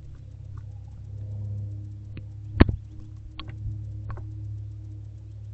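A few sharp knocks and clicks from barn owlets shuffling and tugging at a rat on the floor of a wooden nest box. The loudest knock comes about two and a half seconds in, and two lighter ones follow, all over a steady low hum.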